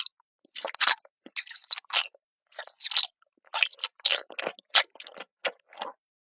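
A cat chewing crunchy food, a quick run of separate crunches about two a second that stops near the end.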